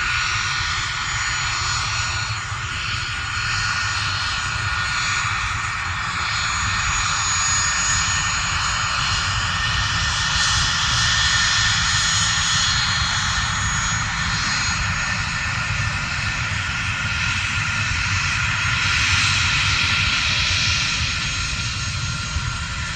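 A Cessna 650 Citation III business jet's twin Garrett TFE731 turbofans run steadily: a jet whine with several high steady tones over a low rumble, swelling slightly now and then.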